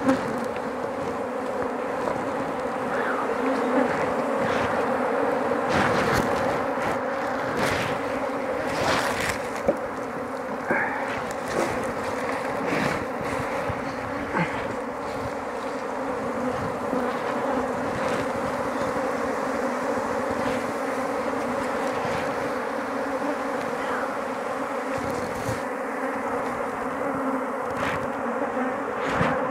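A mass of honey bees buzzing steadily around opened hives, a dense, even hum, with a few short knocks now and then.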